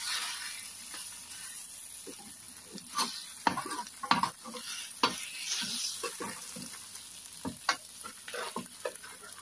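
Potato strips and egg sizzling in a rectangular metal pan while a metal spatula stirs and turns them, with several sharp scrapes and clacks of the spatula against the pan over a steady frying hiss.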